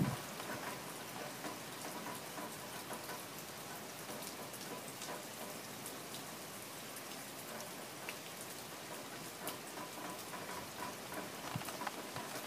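Steady rain falling, with many individual drops ticking and splashing throughout, and a brief low thump at the very start.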